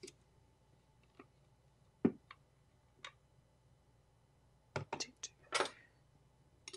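Stainless measuring cup scooping flour from a clear flour canister, knocking and clinking against its sides, loudest about two seconds in. Near the end come a quick run of taps and a short scrape as the cup of flour is levelled off.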